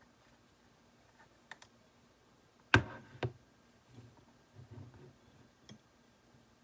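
Handling of a plastic dental typodont and a metal curette: a few faint clicks, then two sharp clicks about half a second apart near the middle, followed by soft handling noise as the instrument is brought to the teeth.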